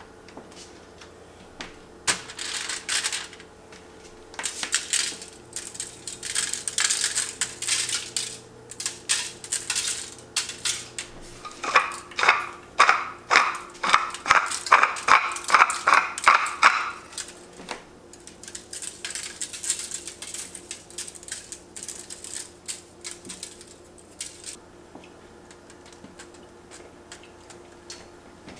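A pepper mill is twisted over tomato slices on a foil-lined pan, grinding in a quick run of crunching strokes, about two or three a second, lasting roughly five seconds in the middle. Bursts of crisp, crackly rustling come before and after it as the tomatoes are laid out and seasoned, over a faint steady hum.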